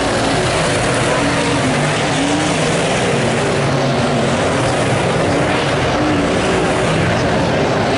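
Late model sedan race cars' engines running hard in a pack on a dirt oval, a loud steady drone with several pitches rising and falling as the cars accelerate and pass.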